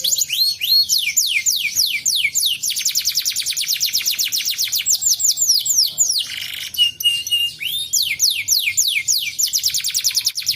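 Canary singing fast rolling trills of rapidly repeated falling notes. About six seconds in, the trill breaks for a brief noisy burst and a few short level notes before the rolls resume.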